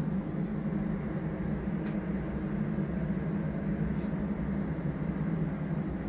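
Steady low machinery hum with a light hiss above it, unchanging throughout.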